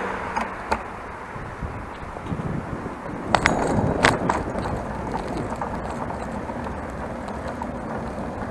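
Single-speed bicycle rolling across a street and onto brick paving, with steady tyre and wind noise. A cluster of sharp rattles and clicks comes about three to four seconds in as the bike jolts on the bricks.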